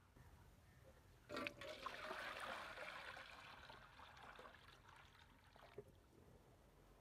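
A stream of water pouring into a speckled enamel basin, starting with a splash about a second in and fading away near the end.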